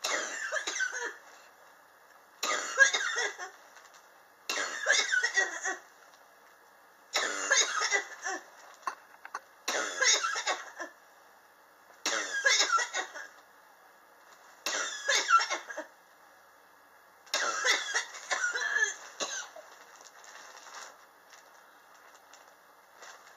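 A person coughing in repeated fits, a burst about every two and a half seconds, eight in all, the last one longest and followed by fainter coughs. It is a persistent chronic cough that has gone on for about two years.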